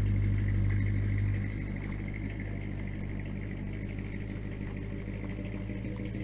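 An engine idling steadily, its low rumble dropping in level about a second and a half in.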